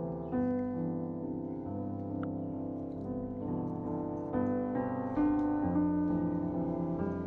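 Background piano music, held notes and chords changing about once a second.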